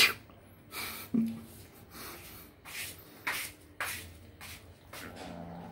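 Several cats eating rice mixed with fish, making a run of short, sharp, irregular chewing and smacking sounds. The first sound, right at the start, is the loudest.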